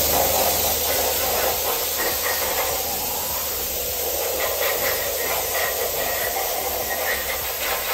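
Pressure washer's water jet spraying onto a bare engine block: a steady, loud hiss of spray over a low, even hum.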